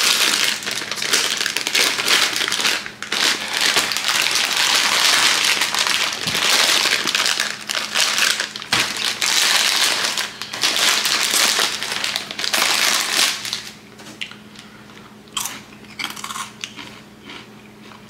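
Foil-lined Flaming Hot Cheetos bag crinkling loudly as it is pulled open and torn down to lie flat. After about thirteen seconds it drops to a few lighter, scattered crinkles as the snacks are handled.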